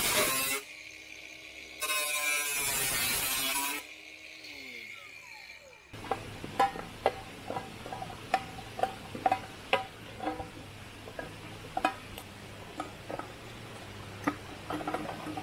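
Cordless angle grinder cutting a metal tin: a short burst ending just after the start, then a second cut about two seconds long, each stopping abruptly. From about six seconds on, scattered light metallic clicks and clinks as the cut tin is handled and its cut end worked by hand.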